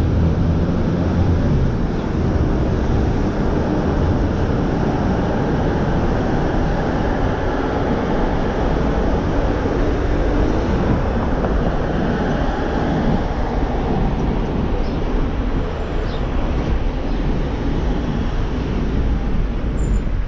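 Steady road and traffic noise of a car driving on city streets.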